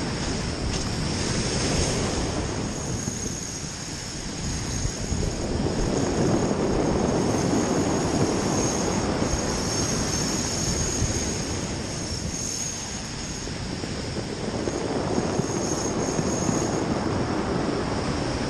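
Heavy sea surf breaking and washing over a pebble beach, a continuous rushing roar that swells and eases as the waves come in, with wind buffeting the microphone.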